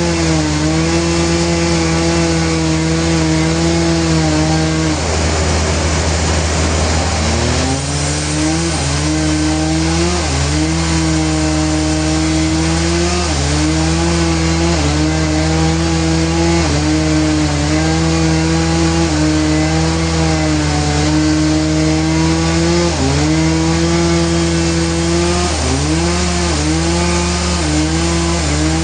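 Sawmill saw running and cutting through a trembesi log, its motor humming steadily with the pitch sagging several times as the blade takes load, most deeply around five to eight seconds in.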